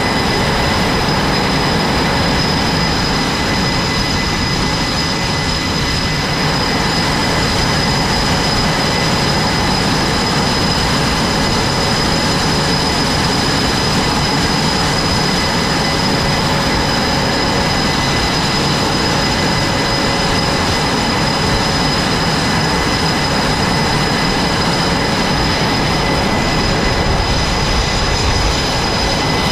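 Jet engines running on an aircraft carrier flight deck: a steady, loud rushing roar with a high turbine whine on top.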